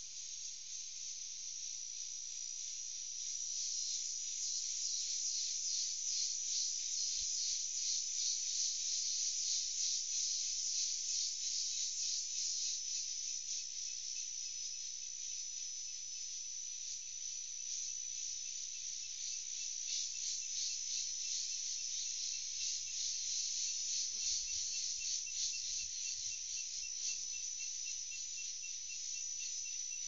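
Dense chorus of insects, a high-pitched steady buzzing with a fast pulse, swelling a little in the first few seconds; near the end a quick repeated chirping joins in.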